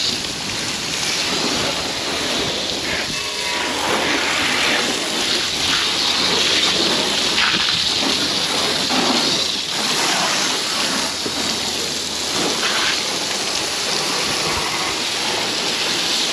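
Water from a garden hose spraying and splashing over a plastic Hobie Pro Angler 14 kayak's seat and deck: a steady, dense splashing hiss.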